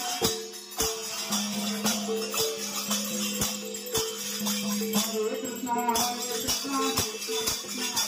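Devotional kirtan music: brass hand cymbals struck in a steady rhythm about twice a second, with continuous metallic jingling, over a sustained drone of held notes.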